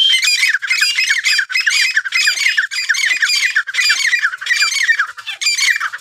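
Caged teetar partridges calling loudly without a break: shrill, repeated notes run together in phrases about twice a second.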